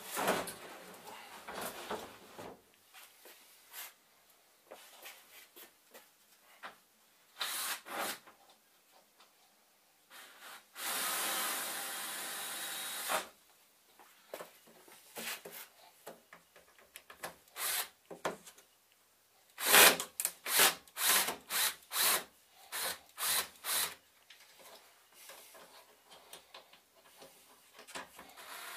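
Wooden flight case being closed up: the lid set down with knocks and bumps, then a couple of seconds of steady scraping, then a quick run of sharp knocks on the wood. A cordless drill starts whirring right at the end.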